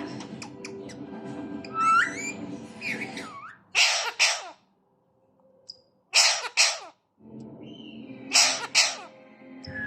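Alexandrine parakeet imitating a human cough: three harsh double coughs, roughly every two and a half seconds. They follow a rising whistled call about two seconds in.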